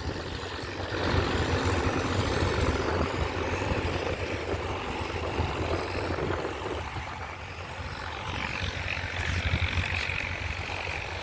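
Tractor engine running with a steady low throb; the sound thins out about two-thirds of the way through.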